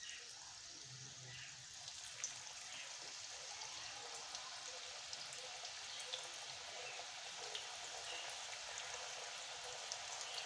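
Onion pakora batter frying in hot oil in an iron kadai: a steady crackling sizzle with scattered small pops, growing slowly louder as more pieces go into the oil.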